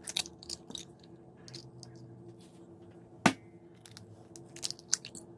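Eggs being cracked into a glass measuring cup: small clicks and crackles of eggshell, with one loud sharp tap about three seconds in.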